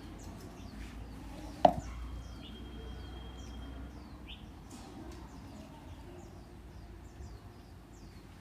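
A single sharp knock about one and a half seconds in, over small birds chirping repeatedly in the background and a low steady hum.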